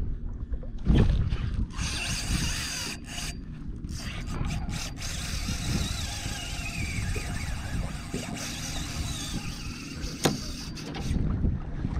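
A fishing reel's drag buzzing steadily as a hooked tarpon runs and pulls line off it, with short breaks and over wind and water noise. There is a sharp thump about a second in.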